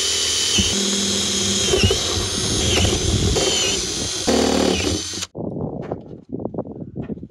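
Cordless drill turning a step drill bit through the oiled sheet-metal roof of a van, enlarging a pilot hole to 15 mm: a steady high whine that dips briefly in pitch about once a second. It stops about five seconds in, followed by a few light clicks and rustles.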